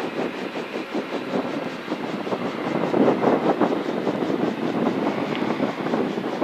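Helicopter engine and rotor running steadily, a continuous rushing noise with a faint high whine over it.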